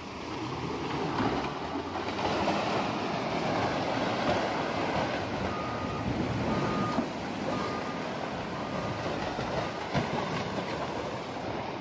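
Rock slide coming down a quarry face: a continuous rumble of falling rock and tumbling boulders that swells about half a second in, with scattered heavy impacts. About halfway through, a reversing alarm beeps about five times, one beep roughly every 0.7 s.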